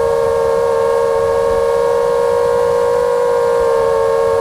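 5-inch FPV quadcopter's brushless motors (T-Motor F60 Pro II 2207 2500Kv) with three-blade props whining at a steady cruise throttle. The pitch dips slightly at the start, then holds with only a small waver.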